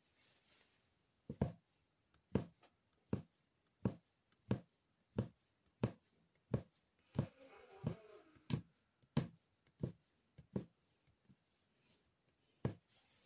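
Punch needle stitching: the needle punched in and out of fabric stretched taut on a wooden frame, a soft, regular thump with each stitch, about one every 0.7 seconds.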